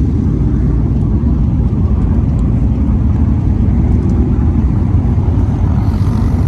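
A field of dirt super late model race cars' V8 engines running together in a loud, steady, deep rumble as the cars circle the track on warm-up laps.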